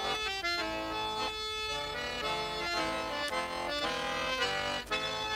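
Russian button accordion playing an instrumental passage between sung verses of a folk song, its chords changing every half second or so.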